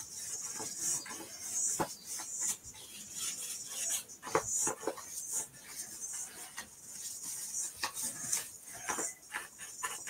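Paintbrush scrubbing paint back and forth across a paper journal page: repeated scratchy strokes, with a few sharp taps in between.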